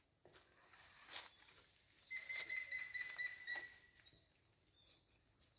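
A bird's high whistled trill about two seconds in, lasting about a second and a half and dropping slightly in pitch, over faint rustles and clicks.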